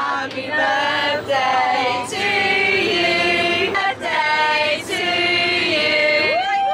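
Several voices singing together, holding notes in short phrases about a second long with brief breaks between them.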